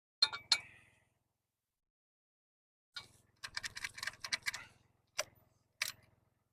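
Steel parts and tools clinking and clanking as a ripper claw is fitted to a mini excavator. Two sharp clinks with a brief metallic ring come just after the start, a quick run of rattling clicks follows in the middle, then two single knocks near the end.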